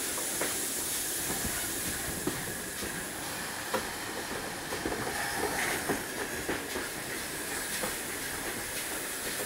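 GWR 9400-class 0-6-0 pannier tank steam locomotive 9466 on the move: a steady hiss of steam under scattered, irregular clicks of the wheels over the rails.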